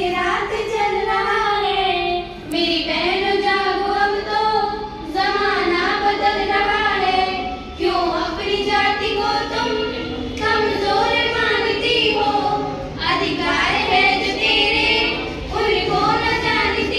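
Group of schoolgirls singing a song together, in phrases of two to three seconds with short breaths between.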